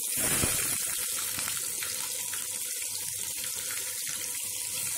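Chopped onions hitting hot oil in a kadai: a sudden sizzle as they go in, settling into a steady frying hiss with small crackles.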